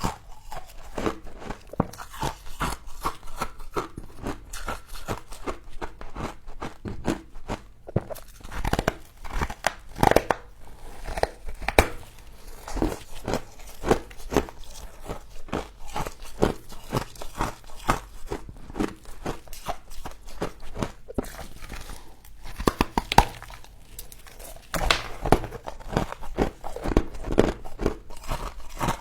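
Frost being bitten and chewed close to the microphone: a long run of irregular, sharp crunches in quick succession, busier in the last few seconds.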